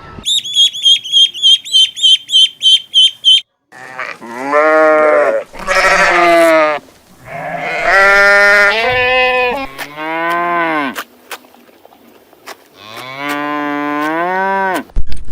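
A quick run of about a dozen short, high chirps, about four a second, then a farm animal bleating in about five long, wavering calls.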